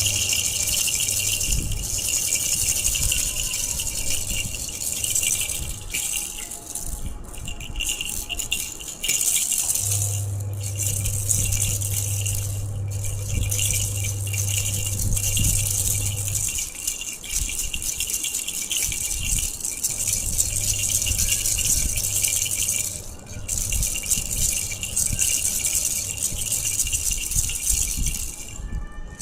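Baby rattle shaken continuously: a dense, high-pitched rattling of small beads, broken by a few brief pauses.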